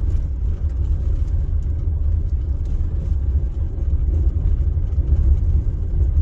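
A vehicle driving on a dirt road: a steady, loud low rumble of engine and tyres, with faint scattered ticks over it.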